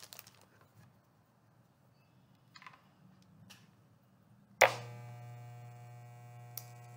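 Electric hair clippers fitted with a guard: a few soft handling knocks, then the clippers are switched on with a sharp click about four and a half seconds in and run with a steady, even hum.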